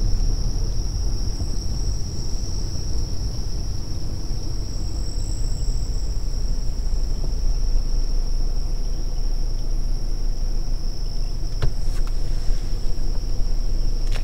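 Night insects trilling in one steady, unbroken high-pitched chorus over a constant low rumble, with two faint clicks a bit past three-quarters of the way through.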